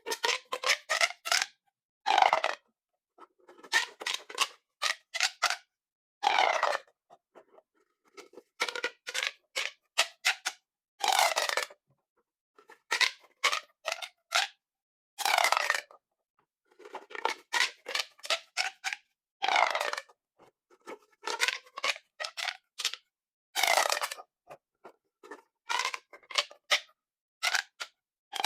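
Plastic pop tubes being stretched and squeezed, giving bursts of quick crackling clicks, some with a gliding whistle-like pitch, over and over with short pauses between.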